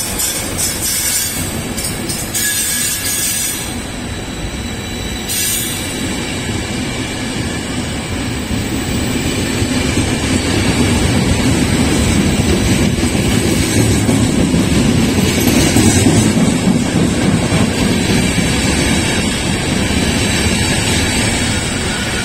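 Trenitalia Intercity passenger carriages rolling past at close range: a steady rumble of steel wheels on the rails that grows louder about halfway through, with high wheel squeal in the first few seconds.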